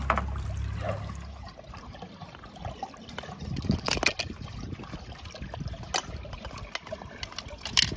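Water trickling, with a few sharp clicks scattered through it. A low hum underneath stops about a second and a half in.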